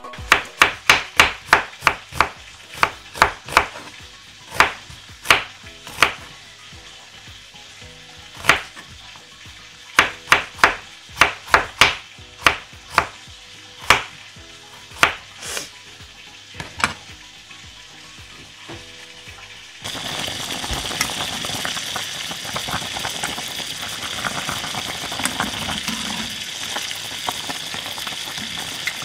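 Knife slicing through an onion onto a wooden cutting board: a quick run of sharp chops, then scattered ones. About twenty seconds in, the sound changes abruptly to the steady hiss and bubbling of a pot of linguine boiling as it is stirred.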